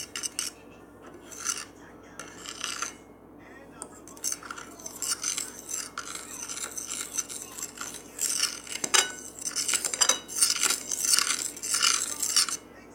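Homemade slime being mixed, giving repeated short wet, squishy strokes that come closer together and louder over the last few seconds.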